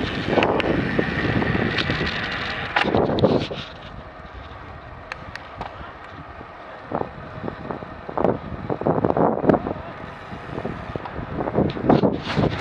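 Wind buffeting the microphone of a camera riding along on a road bike at about 25 to 30 km/h, in uneven gusts. It is louder for the first three seconds or so, then drops to a lower rush with scattered gusts.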